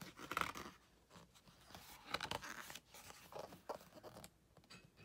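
Pages of a large, glossy-paged art book being turned by hand: paper rustling and sliding in several short rustles, the loudest about half a second in.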